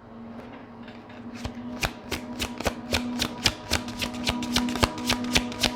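Tarot cards being shuffled by hand: a regular run of crisp card clicks, about four a second, starting about a second in and growing louder.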